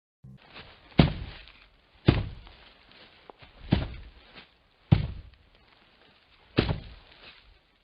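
Five dull thuds at uneven intervals, each dying away within about half a second.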